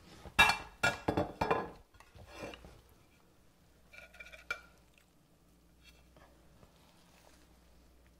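Metal serving spoon clinking and scraping against a ceramic baking dish and plate as casserole is scooped out: a cluster of sharp, ringing clinks in the first two seconds, another ringing clink about four seconds in, then quiet.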